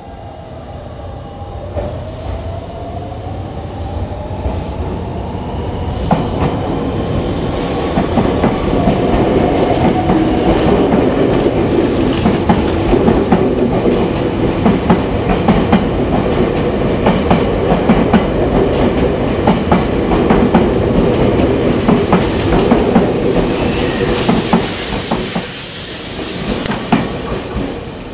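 Semboku Rapid Railway 5000 series electric train pulling away, its GTO-thyristor inverter giving a tone that dips and then climbs as it starts off. As the cars pass close by, the rumble builds and the wheels clack over rail joints, with a high hiss near the end.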